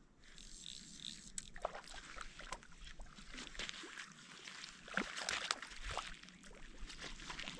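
Water splashing and sloshing in short, irregular bursts as a small, feisty brook trout thrashes at the surface while it is reeled in and landed. The loudest splashing comes about five seconds in.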